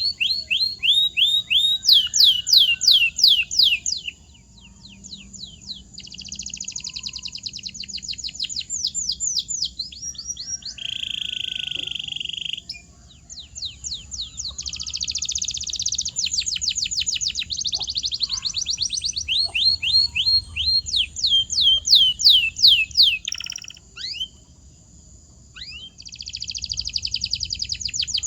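Canary singing: long rolls of fast, repeated falling whistled notes, broken by a buzzy steady trill around the middle. The song pauses briefly twice, a few seconds in and again near the end.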